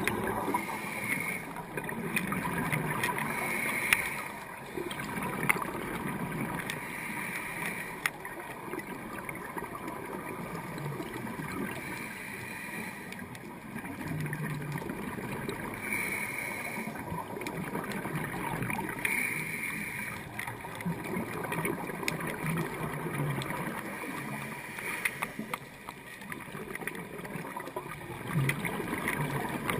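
Underwater sound of scuba breathing through a regulator: exhaled bubbles gurgling, with a hiss recurring every few seconds.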